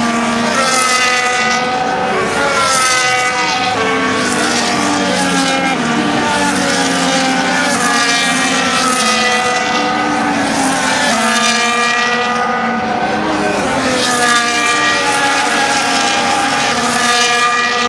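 Formula 1 cars' turbocharged V6 engines passing at speed one after another, a high-pitched whine whose pitch slides as each car goes by, several overlapping at once.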